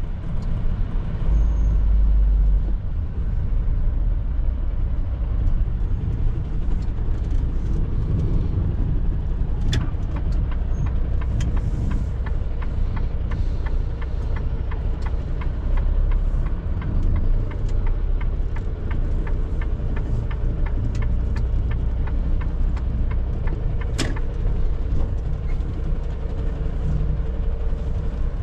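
Mercedes-Benz Atego 1024 truck's diesel engine running at low speed, heard from inside the cab as a steady low rumble. A run of evenly spaced ticks sounds for several seconds in the middle, and there are two sharp clicks, one before and one after.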